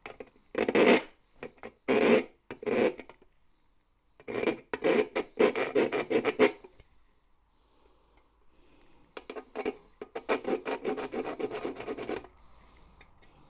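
Hand file rasping on a brass hinge edge of a metal equipment bin, filing off a sharp overhanging edge. First about three slow separate strokes, then two runs of quick short strokes with a pause of a couple of seconds between them.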